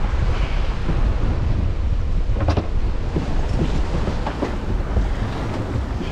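Strong wind buffeting the microphone aboard a sailing yacht, a heavy rumble over the rush of waves along the hull, with a few short knocks or splashes, the clearest about two and a half seconds in.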